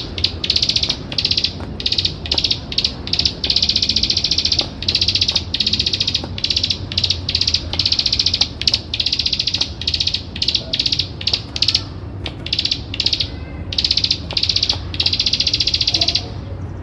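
A ciblek sawah prinia giving its fast, buzzy clicking trill (the 'ngebren' rattle) over and over in bursts, some short, some about a second long, with only brief gaps between them. A steady low hum runs underneath.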